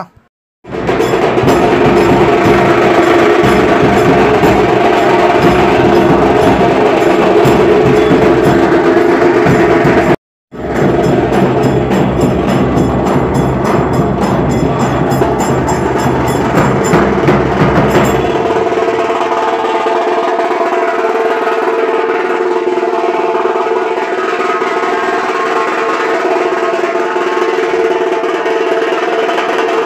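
Loud percussion music: fast drumming with a snare-like roll and rhythmic clacking. It cuts out for a moment about ten seconds in, and after about eighteen seconds the deep drum drops away, leaving steadier higher ringing tones.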